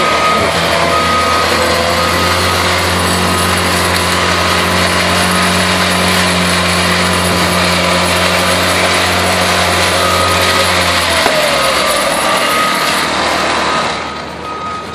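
Small gasoline engine on a vibrating power screed, running steadily at high speed as the screed is drawn across wet concrete. The note changes about eleven seconds in, when its steady low hum drops out.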